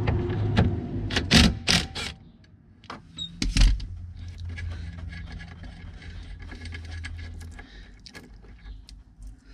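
A cordless impact wrench runs for about two seconds on a bolt, with a motor hum and several sharp knocks. Small metallic clicks and rattles follow as the loosened stop bolt on the backhoe's pilot control pedestal is turned out by hand.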